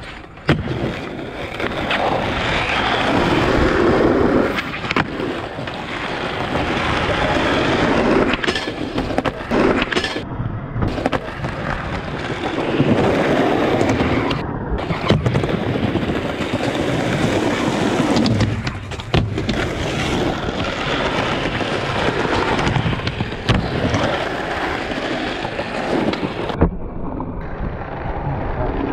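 Skateboard wheels rolling over concrete with a steady rough rumble, broken by a few sharp clacks of the board popping and landing on ledges and ramps. The sound breaks off abruptly a few times between clips.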